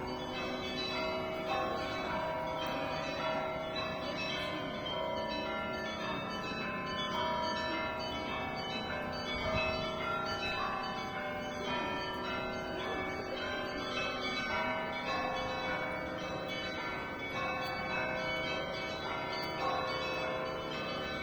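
Russian Orthodox church bells being rung (kolokolny zvon): a continuous peal of many bells of different pitches, struck in a dense, overlapping pattern with no pauses.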